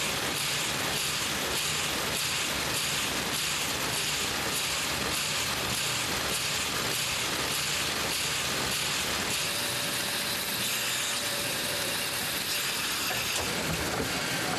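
Sheet-fed currency printing press running, a steady mechanical clatter and hiss as sheets of $100 notes feed through and stack.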